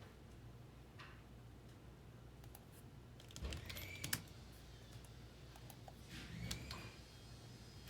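Faint typing on a computer keyboard, two short clusters of keystrokes: a credit being entered into an account.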